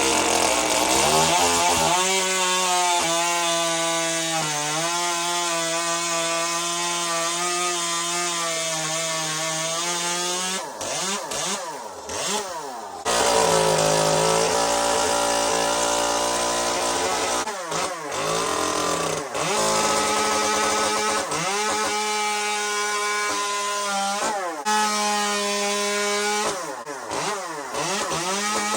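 Echo 2511 top-handle chainsaw's small two-stroke engine running at high revs, cutting wood. The throttle is let off and opened again several times, so the pitch drops and climbs back, most clearly about halfway through and again near the end.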